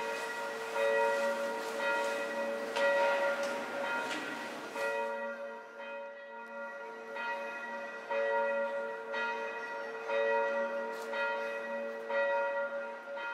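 Church bells ringing, several bells of different pitch struck over and over, about one strike a second.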